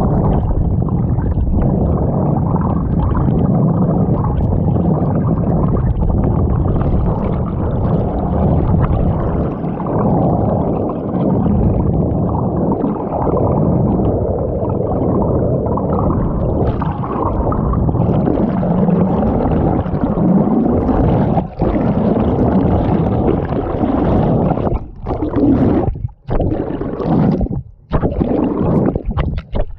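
Muffled water noise picked up by a GoPro through its waterproof housing underwater: a steady low churning and gurgling, with no clear pitch, that drops out briefly several times near the end.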